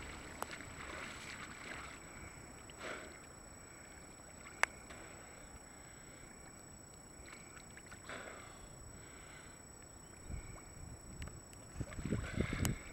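Lake water splashing and lapping at the surface during front-crawl swimming, with a few soft stroke splashes and one sharp click about four and a half seconds in. Louder low sloshing of water against the camera near the end.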